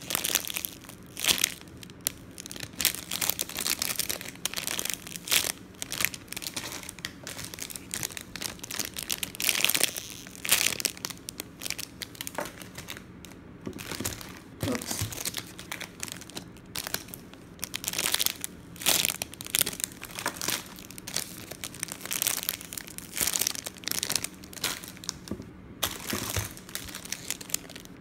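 Clear plastic packaging crinkling in irregular bursts as bagged foam squishy donuts are handled and turned over.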